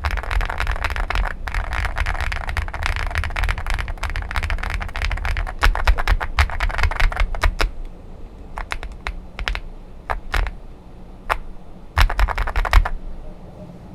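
Zoom65 mechanical keyboard with lubed Jwick switches and Akko SAL keycaps being typed on: a fast, continuous stream of keystrokes that thins to scattered single key presses about eight seconds in, with a short quick flurry near the end.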